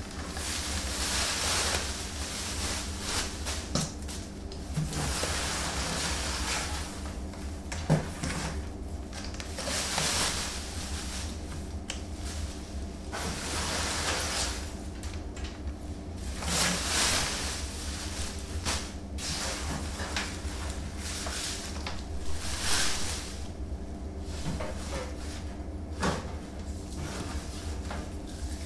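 Shredded-paper packing rustling in repeated handfuls as it is pulled from a cardboard box and stuffed into a plastic trash bag, with a few short knocks. A steady low hum runs underneath.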